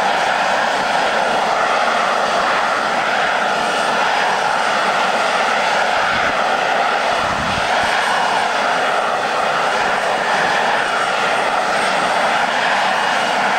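A BAC Lightning F.6's Rolls-Royce Avon turbojet running steadily, a loud, even jet noise with a slowly wavering edge; only one of the aircraft's two engines is running.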